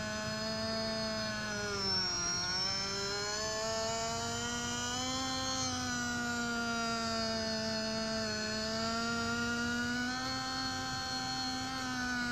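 Small electric motors of a radio-controlled Liebherr 922 model excavator whining steadily as the arm and bucket dig. The pitch dips briefly about two seconds in as the motors take load, then wavers up and down with the moves.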